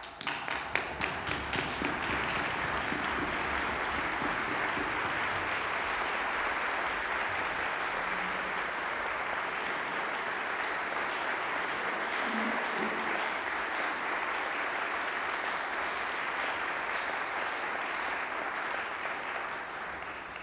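Audience applauding: a few distinct claps at first, quickly filling out into steady applause that fades near the end.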